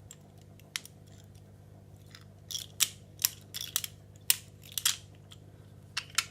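Irregular sharp metallic clicks of lever-lock picking tools working inside a Securit 6-lever closed-shackle padlock. The levers are being lifted and over-lifted under light tension. The clicks come singly and in a quicker run in the middle.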